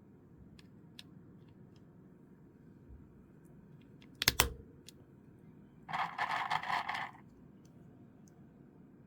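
Low-profile Gateron mechanical switch being handled and pressed into place: faint small clicks, a sharp plastic snap a little past four seconds in, then about a second of rapid rattling clicks.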